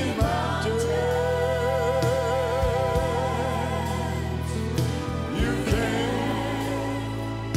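Gospel song with singing: a vocal line holds one long note with vibrato for several seconds, over a steady band accompaniment with a low bass line.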